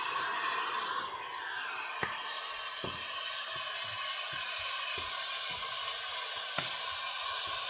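Handheld heat gun running with a steady blowing hiss as it heat-shrinks window tint film onto curved glass, with a few light knocks.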